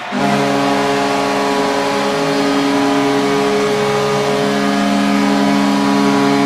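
Hockey goal horn sounding one long, steady chord that starts suddenly, over crowd noise.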